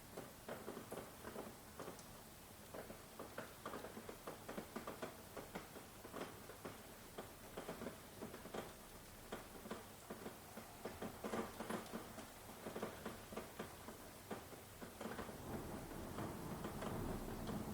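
Rain falling, with many close, irregular drops pattering and ticking on a hard surface over a soft hiss. A low rumble swells in near the end.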